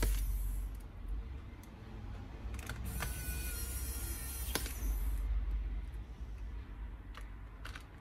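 Small motor of an electric precision screwdriver whirring as it turns laptop screws, stopping about half a second in and running again from about three to five seconds in, with a few small clicks of the screws and tool.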